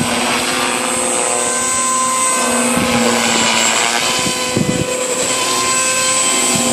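JR Forza 450 radio-controlled helicopter in flight: the high, steady whine of its electric motor and gears over the buzz of the spinning rotor, wavering a little in pitch as it manoeuvres.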